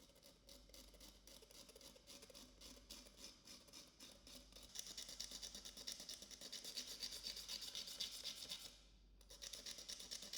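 Rapid back-and-forth scraping strokes, several a second, as of filing or sanding a hard surface by hand. They grow louder about five seconds in, stop briefly near the end, then start again.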